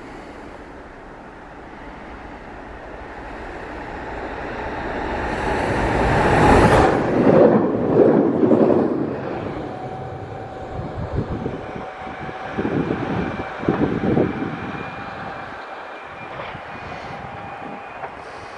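Train passing through a station. The rumble builds to its loudest about six to eight seconds in, then fades, with a few uneven surges and a thin steady high whine in the second half.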